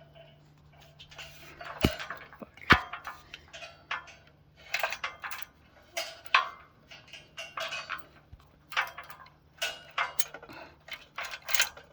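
Irregular metal-on-metal clanking and scraping as bolts and steel beam hardware are worked and knocked to line up with a twisted steel I-beam. There are two sharp clanks about two seconds in.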